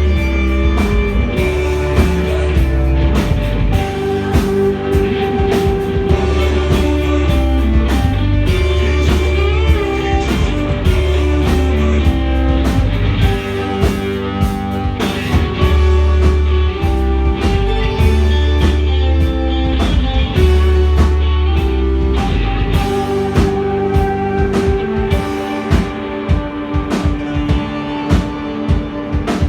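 A rock band playing live: guitar over a drum kit, with heavy deep sustained notes underneath that drop out about three-quarters of the way through.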